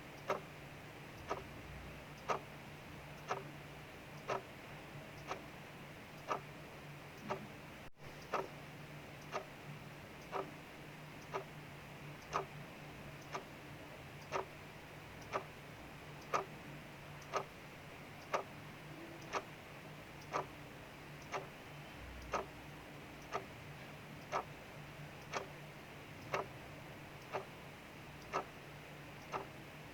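Clock ticking about once a second, with a steady hiss of rain behind it.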